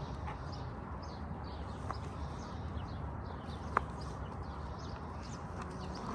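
Outdoor ambience: faint birdsong over a steady low background rumble, with one sharp click or knock a little before four seconds in.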